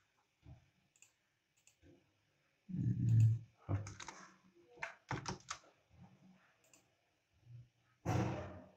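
Computer keyboard keystrokes and mouse clicks, scattered and irregular, with a louder dull knock about three seconds in and a louder, longer sound near the end.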